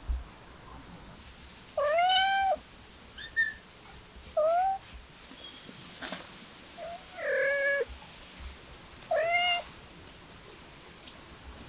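A kitten meowing four times, a couple of seconds apart, in short high-pitched calls, with a brief squeak after the first.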